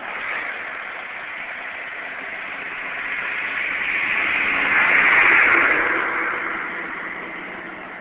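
Backhoe's diesel engine running, growing louder to a peak about five seconds in and then easing off again.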